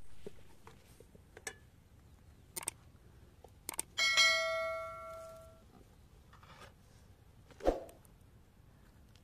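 Subscribe-button notification sound effect: a short click, then a bright bell ding that rings out and fades over about a second and a half, about four seconds in. A single sharp knock comes near the end, with faint scattered ticks around it.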